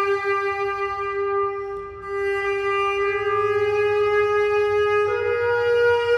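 Contrabass clarinet holding one long sustained note, briefly re-articulated about two seconds in, then stepping up a little in pitch about five seconds in.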